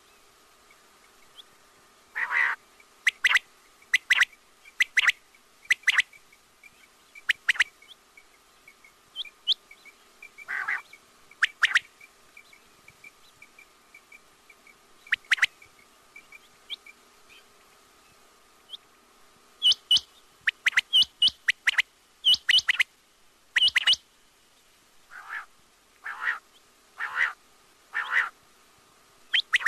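Quail calling: short, sharp high notes, one at a time and in quick runs of two or three, repeated through the stretch with a busier burst of calls about two-thirds of the way in, over a faint steady hum.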